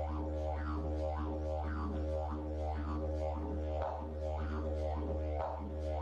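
Didgeridoo music: a steady low drone with rhythmic sweeps in its overtones, about two a second.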